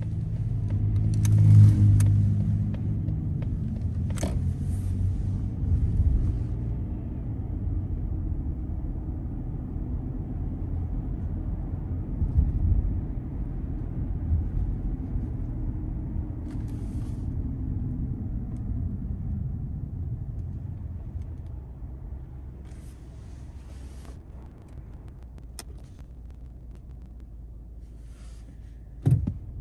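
A car's engine and tyres rumbling steadily while driving on city streets, loudest in the first couple of seconds and quieter over the last third. A few light clicks, and one sharp knock near the end.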